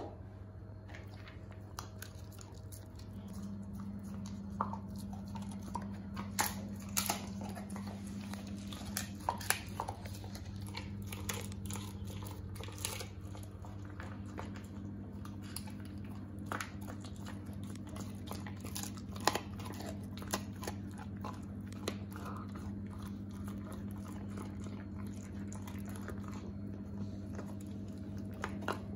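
English springer spaniel chewing a raw chicken wing, the bones cracking in irregular sharp crunches. A steady low hum runs underneath.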